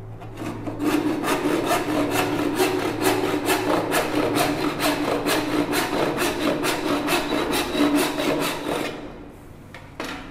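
A 12-inch back saw cutting a kerf down into the round tenon of a wooden stool leg, the slot that will take a wedge. It goes in quick, even strokes, about three a second, and stops about a second before the end. A single knock follows near the end.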